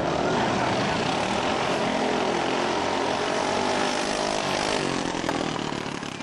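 Engines of modified racing riding lawnmowers running hard at full throttle during a drag race, loud and steady, then fading away near the end.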